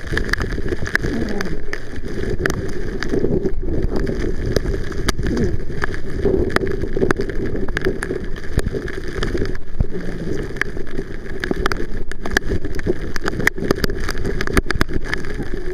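A small boat's motor runs steadily across the water, with wind buffeting the microphone and frequent sharp ticks throughout.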